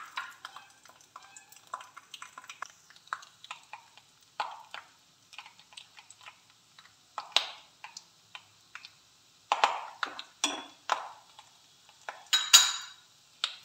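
Slotted steel spatula stirring peanuts frying in a steel kadhai: irregular scrapes and clinks of metal on the pan, over a faint sizzle of the hot oil.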